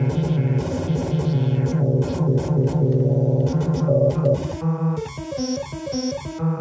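Benjolin chaotic synthesizer module playing a dense, buzzy drone of shifting tones while its knobs are turned. About three-quarters of the way through it changes to a sparse, stepped pattern of short repeating pitched notes.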